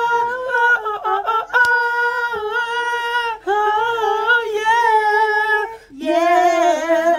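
People singing together in unison, unaccompanied, in long held high notes. The note breaks briefly about three and a half seconds in and drops to a lower pitch about six seconds in.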